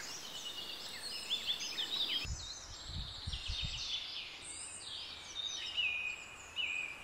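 Wild songbirds singing, several chirping and trilling songs overlapping. There are a few low thumps from about two to three and a half seconds in.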